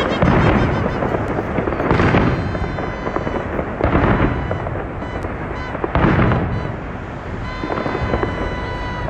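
Aerial fireworks going off: a dense, continuous crackle of bursting shells, with a louder boom about every two seconds.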